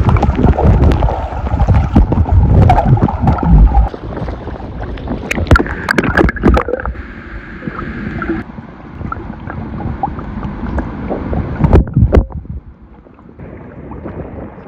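Wind rumbling on the microphone over surf noise at the shore, with scattered sharp knocks and clicks. The sound changes abruptly several times.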